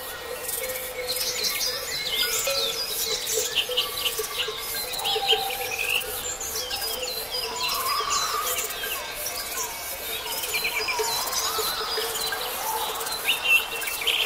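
A morning chorus of several songbirds: overlapping chirps, whistles and quick trills. A steady low tone runs underneath.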